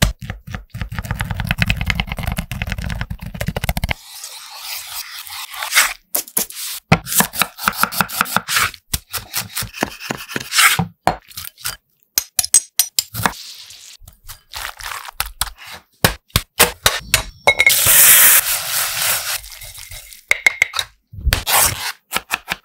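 Close-miked food-preparation sounds in quick succession: fast runs of knocks and taps, scraping and rubbing, and short hissing stretches. Near the end, scissors snip through a banana leaf.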